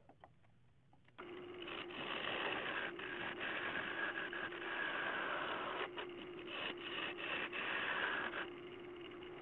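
A wood lathe running with a steady hum while a bowl gouge cuts a spinning ash bowl blank, making a rough scraping noise that breaks off briefly several times. About a second in, the cutting and hum start after near quiet. Near the end the cutting stops and the lathe's hum carries on alone.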